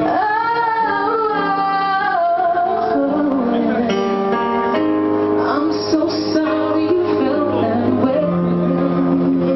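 A woman singing live into a microphone over band accompaniment, opening with a long sliding held note.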